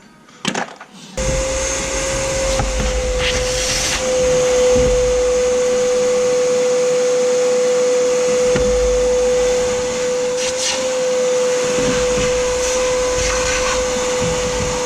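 A vacuum cleaner running with a steady whine, cutting in abruptly about a second in, while cleaning a car's interior.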